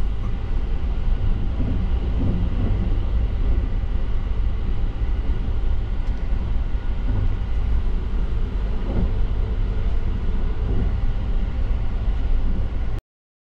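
Steady running noise of the 285-series Sunrise Seto sleeper train heard inside a compartment at speed: a heavy low rumble from the wheels and running gear, with faint steady whines above it. It cuts off abruptly near the end.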